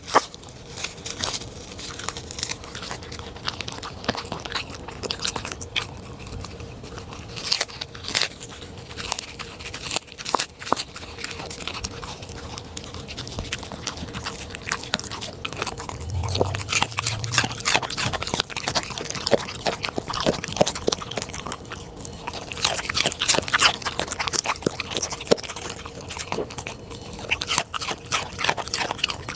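A corgi chewing and crunching through food: dense, irregular crisp bites and crunches that go on the whole time.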